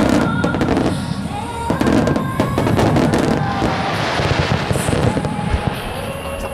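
Aerial fireworks shells bursting in a rapid series of bangs, over music playing.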